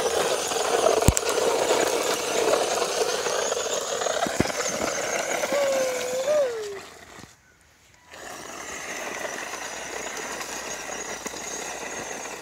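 PHYWESS remote-control toy car's small electric motor and gears whirring as it drives and spins, with a couple of sharp knocks early on. The motor cuts out for about a second a little past halfway, then runs again more quietly.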